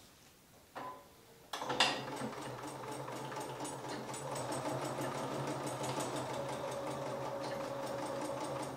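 Bernina sewing machine stitching through a folded cork-leather shoulder strap. It starts up about a second and a half in and then runs steadily, with a rapid, even rhythm of needle strokes over a low motor hum.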